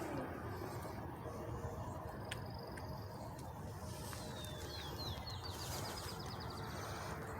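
A small bird sings over a steady low rumble. It gives a thin high note about two seconds in, then a run of quick notes that runs into a trill about four seconds in.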